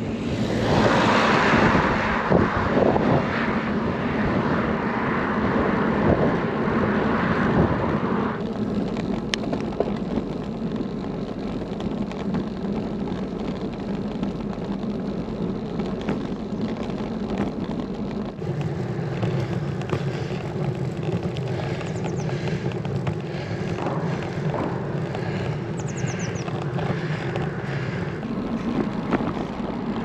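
Steady noise from riding a road bicycle, tyre roar and rushing air with a low hum. The sound changes character about 8 seconds in and again about 18 seconds in.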